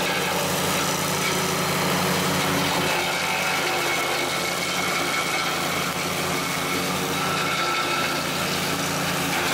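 Engine of an agria 9500 remote-controlled track mower running steadily as the machine crawls through brush and weeds.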